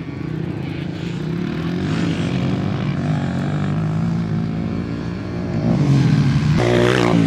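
Dirt bike engine running and revving, its pitch rising and falling, getting louder about six seconds in.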